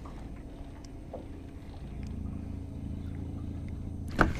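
A boat motor's steady low hum that gets a little louder about halfway through. A single sharp click comes near the end.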